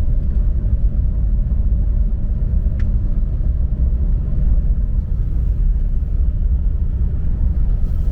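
Car driving at steady speed, a continuous low rumble of engine and road noise heard from inside the car.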